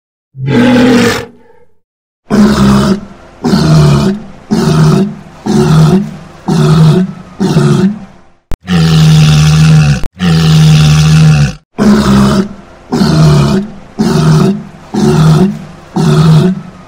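Walrus bellowing loudly: one call, then a long run of short, repeated bellows about two a second, with two longer, held bellows around the middle.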